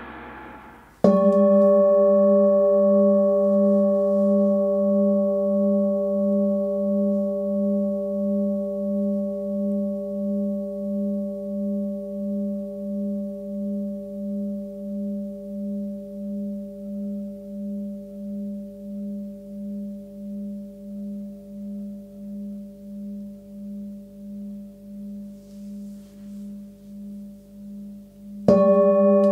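A 20 cm forged Tibetan singing bowl tuned to about 202 Hz (between G and G#) is struck once about a second in and left to ring. Its low hum and several higher overtones fade slowly with a steady wah-wah pulsing, about once every 0.7 seconds. It is struck again near the end.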